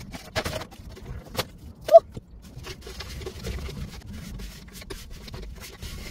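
Paper napkin wiping and rubbing over a tray, with scattered clicks and knocks of things being handled and a short, louder squeak about two seconds in.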